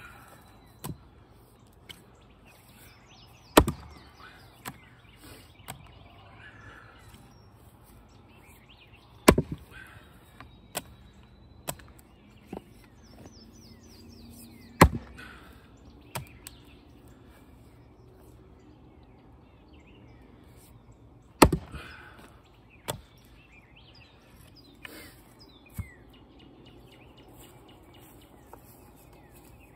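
Splitting tool striking knotty firewood rounds: four heavy blows about six seconds apart, each followed by a few lighter knocks of wood. Birds chirp in the background.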